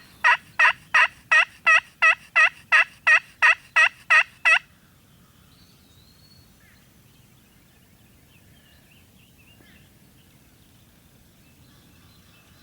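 Turkey yelping: a long, steady series of evenly spaced yelps, nearly three a second, that stops abruptly about four and a half seconds in. Afterwards there are only a faint outdoor background and a few faint bird chirps.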